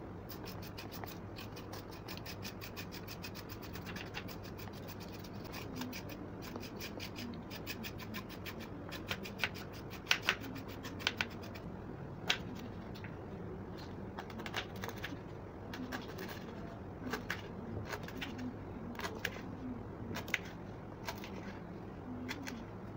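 Kitchen knife scraping the ridged skin off moringa drumstick pods on a wooden cutting board, a fast run of light scratching strokes. From about halfway through it gives way to sharper, spaced knife taps as the pods are cut into short pieces against the board.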